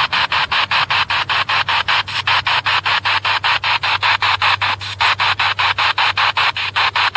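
Spirit box sweeping through radio frequencies: a steady hiss of static chopped into about five short bursts a second, over a low steady hum.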